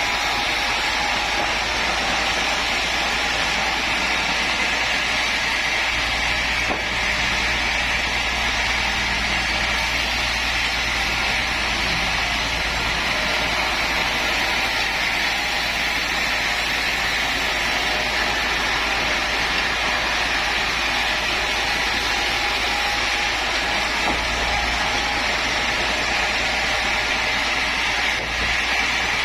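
Woodworking power machinery running steadily: an even, unbroken whir with a low hum beneath.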